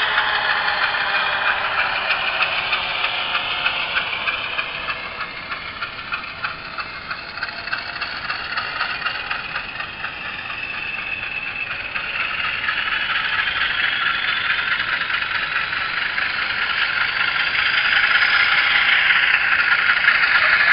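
Sound-decoder recording of a GE U28C diesel engine playing through the model locomotive's small speaker. It winds down over the first few seconds and chugs quietly at low revs. From about halfway through it builds back up, rising in pitch toward the end.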